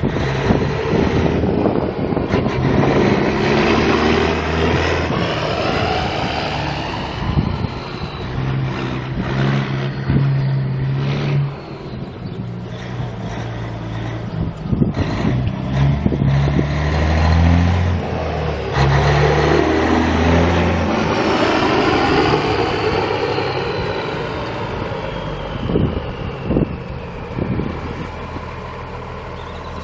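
Caterpillar 3406B inline-six turbo diesel of a 1991 Peterbilt 379 semi truck running and revving, its pitch rising and falling in steps several times. A high whistle falls slowly through the second half.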